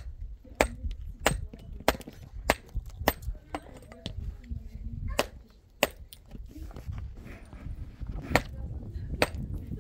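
Repeated sharp knocks, like blows of a tool. They come evenly, about one every 0.6 s, for the first three seconds, then a few more spaced further apart later on, over a steady low rumble.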